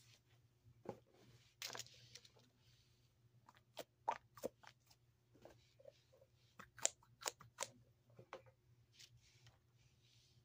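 Fidget toys being handled and set down: scattered light clicks and taps, thickest in the middle of the stretch, with a brief crinkly rustle about a second and a half in.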